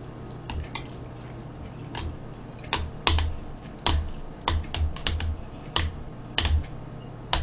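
Chopsticks clicking and tapping against the bowls as cold buckwheat noodles are stirred and loosened: irregular sharp clicks, some with a dull knock.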